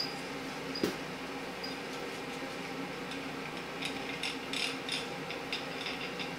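Small metal clicks and ticks from handling tools and engine parts: one sharper click about a second in, then a quick run of light clicks between about four and five and a half seconds, over a steady faint hum.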